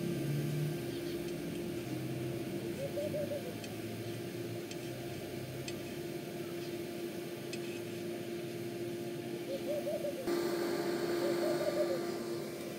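A steady hum with a few short, soft hooting calls over it, once about three seconds in and twice more near the end.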